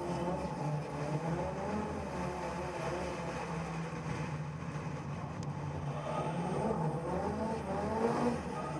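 Drift car's engine revving hard and dropping back again and again as it slides through corners, heard from a camera on its bonnet.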